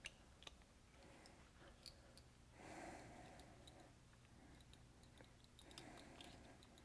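Near silence, with faint scattered small clicks from a screwdriver turning out the grip-frame screws of a stainless Ruger Blackhawk revolver.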